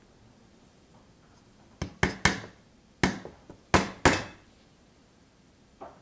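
Hammer driving small nails into thin wooden boards of a nest box: about six sharp strikes with a couple of lighter taps, between about two and four seconds in.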